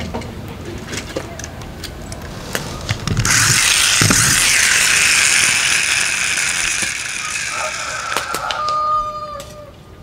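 Plastic gears of a toy monster truck whirring loudly as its wheels are spun. The whirr starts about three seconds in, holds for a few seconds and then winds down. A short steady tone follows near the end.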